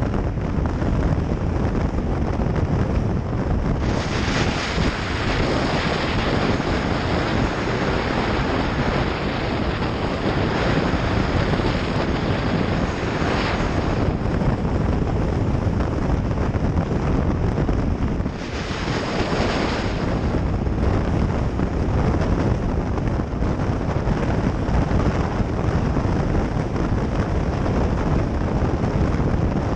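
Motorcycle on the move: engine running under heavy wind rush on the microphone, with a higher hiss swelling for stretches about four seconds in and again near eighteen seconds.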